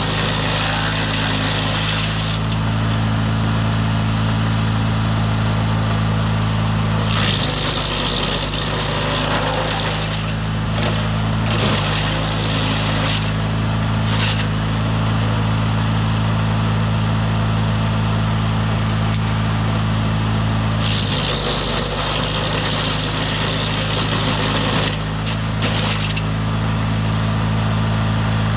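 DR wood chipper's gas engine running steadily while branches are fed through. Twice the engine pitch sags under load as a branch is chipped, with a loud rushing shred of wood, plus shorter bursts of chipping in between.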